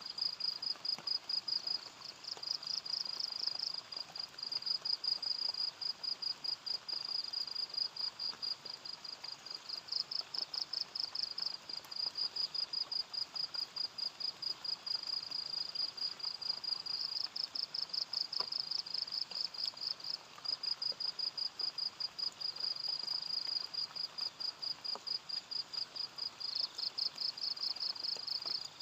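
Crickets chirping: a steady, rapid, high-pitched pulsing trill that breaks off briefly a couple of times.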